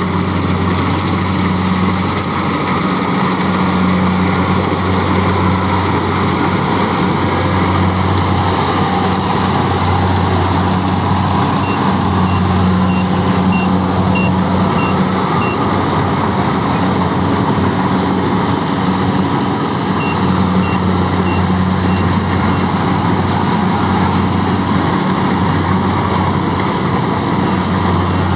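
Heavy rice-harvesting machine's engine running loud and steady. Twice a reversing alarm beeps, about two beeps a second for a few seconds each time.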